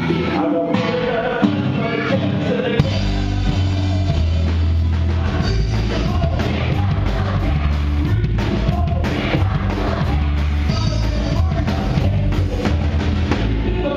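Live rock band playing a song with electric guitar, keyboard and drums, with singing, at a steady beat; the bass comes in fuller about three seconds in.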